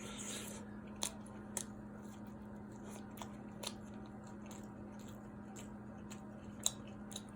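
A person quietly chewing a syrup-soaked pancake, with a few short wet mouth clicks, over a faint steady hum.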